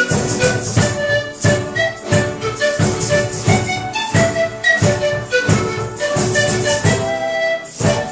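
Music: a melody of held notes over a steady percussive beat, about three beats every two seconds.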